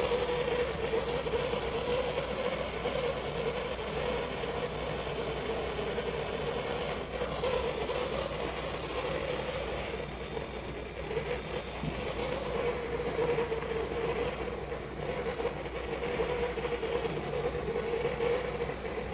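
Gas blowtorch flame burning with a steady hiss, heating a copper pipe fitting for soldering.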